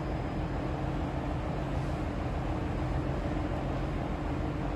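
Steady low machinery drone with a constant hum: the background running noise of a ship's machinery and ventilation.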